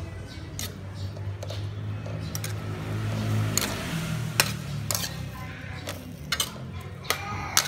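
Metal spatula scraping and clinking against a metal wok while stir-frying cauliflower, with a string of sharp clinks that come more often near the end.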